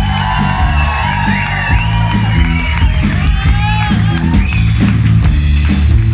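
Live rock band playing an instrumental passage at the end of a song: electric guitar over held bass notes and a steady drum beat.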